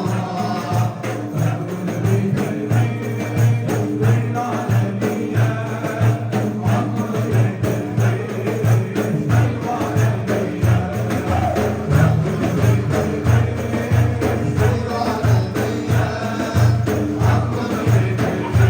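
Turkish Sufi dergah ilahi (devotional hymn): voices singing to a steady frame-drum beat.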